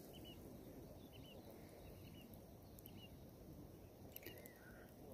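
Near silence, with faint bird chirps: short, high, hooked notes repeated every half second or so, and a couple of soft clicks.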